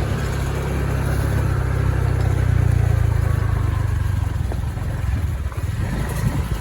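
Motorbike engine running steadily while riding, with a constant low hum and road and wind noise around it.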